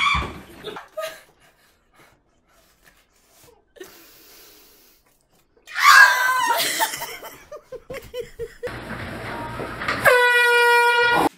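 Clips from home fail videos: about six seconds in, a person shrieks and laughs; near the end, a loud steady horn blast sounds for about a second and cuts off suddenly.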